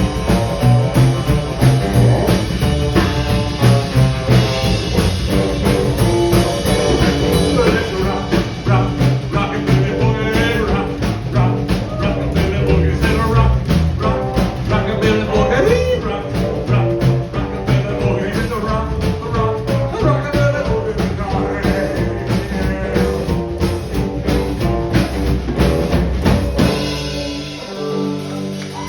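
Live rockabilly band playing a boogie, with drum kit, bass and guitar keeping a steady driving beat. The music drops away near the end.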